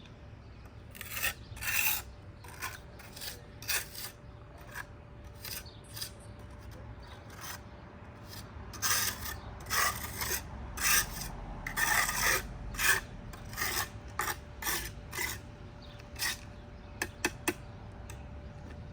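A trowel scraping mortar on brickwork in irregular strokes, busiest about halfway through, with a few sharp clicks near the end.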